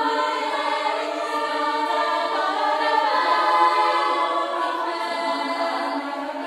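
Student choir singing in several parts: a choral arrangement of a pop song with Norwegian lyrics, in held chords at a steady level.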